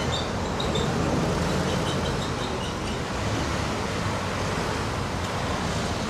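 Road traffic passing steadily: a dump truck goes by close at the start, then cars, with engine and tyre noise.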